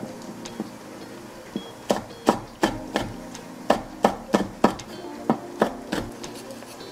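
Kitchen knife chopping fresh red chili peppers coarsely on a wooden cutting board: about a dozen sharp chops in quick, uneven runs, mostly between about two and six seconds in. Faint background music plays underneath.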